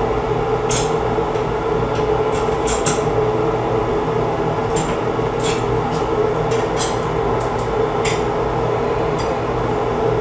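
Scattered short scratchy clicks of a screw tip being pushed through a metal towel bar bracket to mark the drywall, and of the bar being handled, over a steady low hum.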